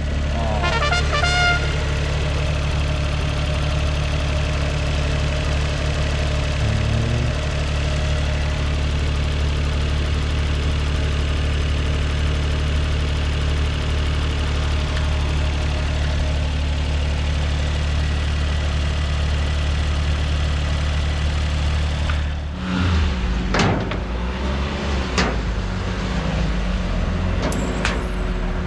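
Suzuki Cappuccino's small three-cylinder turbo engine idling steadily. About 22 seconds in, the sound changes abruptly and a few sharp knocks follow.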